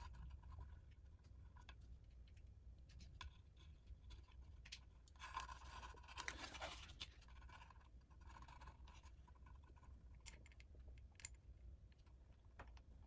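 Faint handling sounds: small wire connectors being worked onto the pins of a speaker kit's control board, with light scratching and a few soft clicks over a low steady hum.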